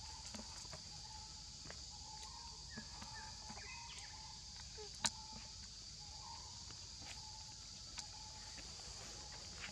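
Steady high-pitched drone of insects (crickets or cicadas) in the background, with a few faint ticks and one sharp click about five seconds in.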